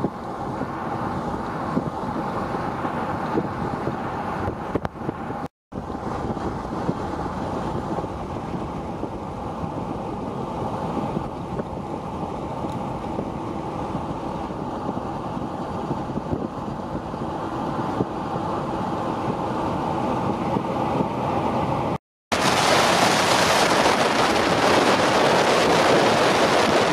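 Steady road and engine noise of a vehicle driving along a highway, heard from inside at the side window. The sound cuts out briefly twice. After the second cut, about 22 seconds in, it turns into loud, even wind noise on the microphone.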